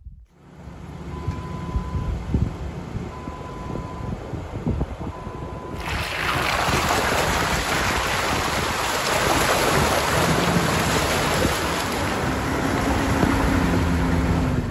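Wind noise buffeting a camera mounted on the side of a Ford Ranger pickup as it drives down a dirt trail. A low rumble with three short, evenly spaced beeps gives way about six seconds in to loud, steady wind hiss.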